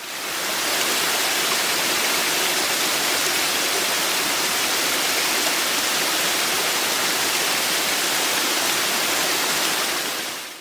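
Waterfall rushing: a steady hiss of falling water, fading in at the start and out near the end.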